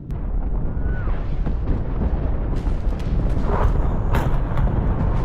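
Naval cannon fire: a continuous low rumble of distant gunfire with sharp cracks of nearer shots, more of them in the second half. A brief high whistle falls away about a second in.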